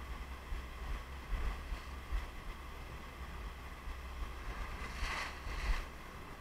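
Rushing, churning water of the Rhine below the Rhine Falls, with a low rumble of wind on the microphone. A short, louder hiss comes about five seconds in.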